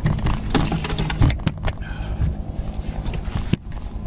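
Boat's outboard motor running steadily at trolling speed. Sharp knocks and clicks of fishing gear being handled on the boat stand out over it, several in the first two seconds and one more near the end.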